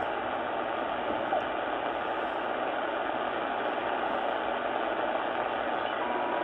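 Steady shortwave static hissing from a Sangean ATS-909X2 receiver's speaker as it is tuned in upper sideband across empty frequencies, with a short whistle-like tone near the end.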